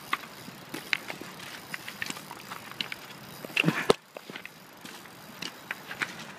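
Footsteps crunching over loose river cobbles, with stones clicking and clacking at irregular intervals. A louder scuff ending in a sharp knock comes a little before four seconds in.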